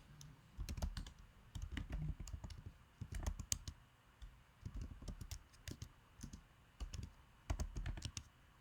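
Typing on a computer keyboard: a run of irregular keystroke clicks with short pauses between bursts.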